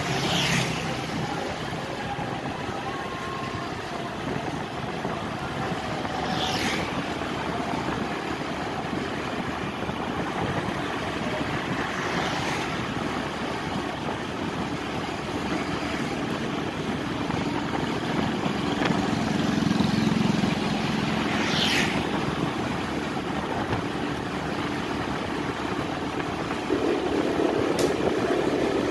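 Steady road and engine noise of a vehicle on the move, with four brief falling whines spread through it.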